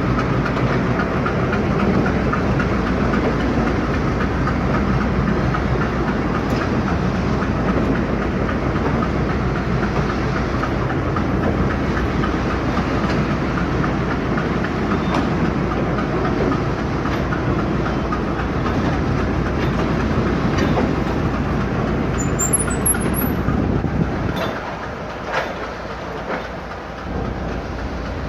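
A train running past on the rails, steady and loud. About 24 seconds in it grows quieter, and the low rumble drops out for a few seconds before coming back.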